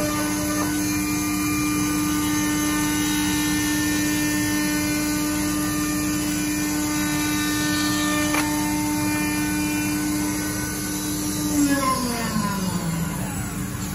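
CNC router spindle running steadily as it cuts a Japanese cedar (sugi) slab, a high steady whine over the noise of the cut. About eleven and a half seconds in the spindle winds down, its pitch falling steadily, while a lower steady machine hum carries on.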